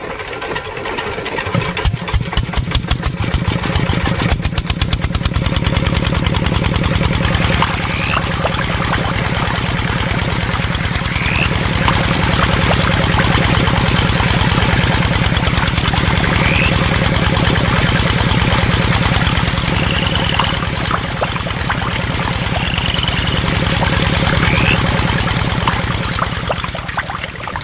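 Small engine of a homemade mini bulldozer running, its firing pulses uneven and spaced for the first few seconds, then settling into a steady fast run.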